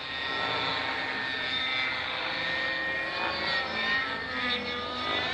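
Remote-control model helicopter flying: its small engine and rotor make a steady, many-toned drone whose pitch drifts up and down.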